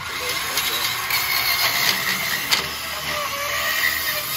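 Ridgid 18V cordless portable bandsaw cutting through a metal bar: the motor running and the blade grinding harshly through the metal, with a sharp clack about two and a half seconds in.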